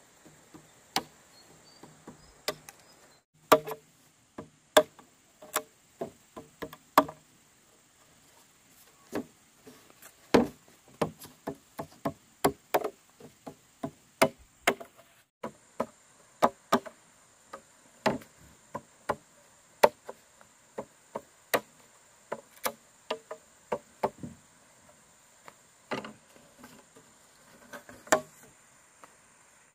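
An irregular series of sharp knocks, like chopping or hammering, about one to two a second with a few short pauses, over a steady high-pitched drone.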